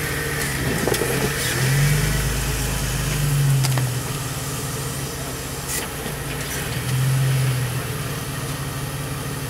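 Jeep TJ rock crawler's engine idling with a steady low hum, revved in short bursts about two seconds in, again near four seconds, and once more about seven seconds in, as it works against a rock ledge.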